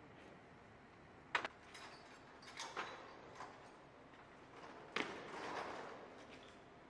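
Sharp metal clanks and clicks of munitions-handling gear as a missile is worked on its loading trailer. A handful of knocks, the loudest about a second and a half in and about five seconds in, the last followed by about a second of softer rushing noise.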